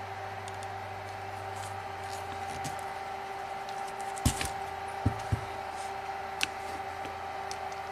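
A few sharp clicks and snaps of a hand tool working wires on a battery sensing harness: one about halfway through, two close together a second later, then one more. A steady hum runs underneath.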